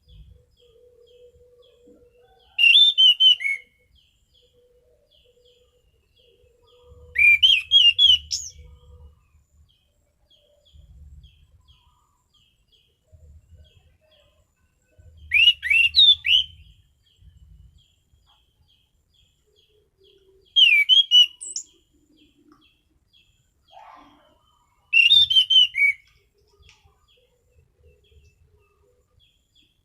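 Orange-banded thrush (anis cendana) singing short, loud phrases of quick sweeping whistles, five times, a few seconds apart. Soft, evenly spaced short notes run between the phrases.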